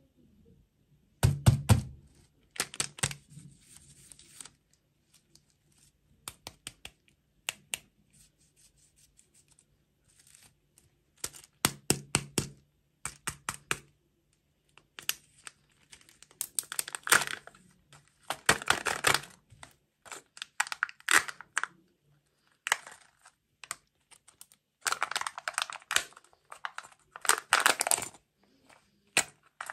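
Kinder Joy chocolate eggs being unwrapped by hand: the printed foil wrapper crinkles and tears in bursts of about a second, between sharp clicks and taps from handling the plastic egg halves.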